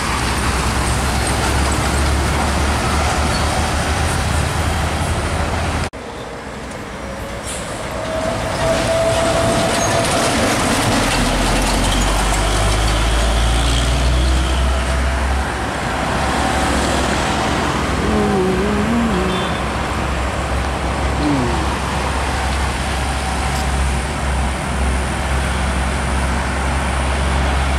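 Road traffic dominated by heavy diesel trucks: a steady low engine rumble with tyre noise as container and box trucks pass.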